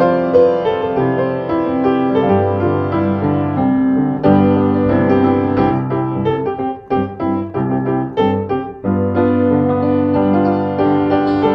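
Background piano music: a slow run of chords and melody notes, with a stretch of short, separated notes in the middle.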